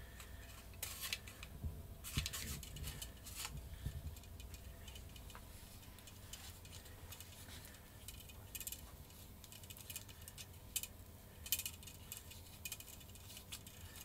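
Hand-turned machine tap in a small T-handle tap wrench cutting a thread into an aluminium insert in a carbon-fibre glider fuselage: faint, scattered scratchy clicks and scrapes, bunched about one to three and a half seconds in and again near the end.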